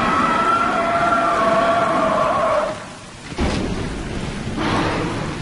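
Sound-designed monster roar for a fictional dragon: a long, rough roar with a held, slowly falling pitch that breaks off about two and a half seconds in, then two shorter, noisy roars.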